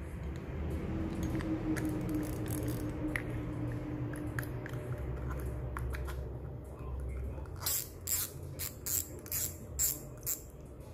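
Daiwa Tourmaline IRT 2500 spinning reel being cranked by hand: a steady low whir with a faint tone, from a reel the seller calls extremely smooth. Near the end come a series of sharp clicks, about two a second.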